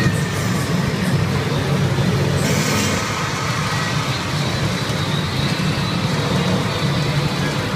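Steady, loud din of a pachinko parlor: many machines' sounds and steel balls running together into one continuous wall of noise.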